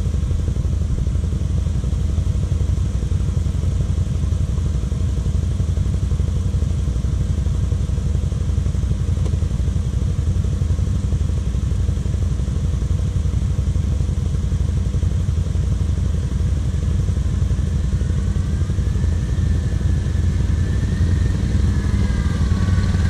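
Kawasaki KVF 750 Brute Force ATV's V-twin engine idling steadily while the quad stands still. In the last few seconds a faint wavering whine comes in as a second quad descends the slope towards it.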